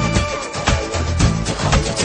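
Music with a steady beat of about two strokes a second under held melody notes; no singing is heard.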